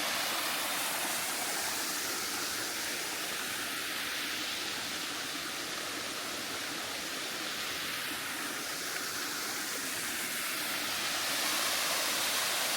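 Small waterfall on a stream, water pouring and splashing in a steady rush.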